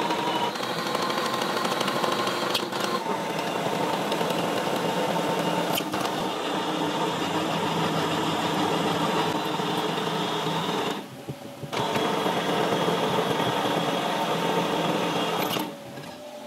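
Metal lathe running while its tool cuts a screw thread into a steel bar: a steady machine hum with cutting noise. The sound dips briefly about eleven seconds in and drops lower near the end.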